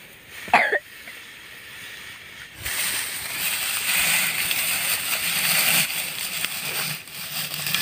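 Dry rice straw rustling as it is pulled up and gathered by hand, a steady hissing rustle starting about two and a half seconds in. A short voice-like sound comes just before it.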